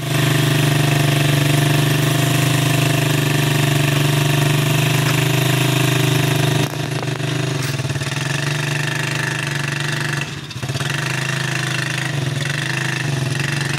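Three-wheeler ATV's single-cylinder engine running, steady at first as it idles. About halfway through the sound changes abruptly and goes on less steadily, with a brief dip, as the machine pulls against a heavy load.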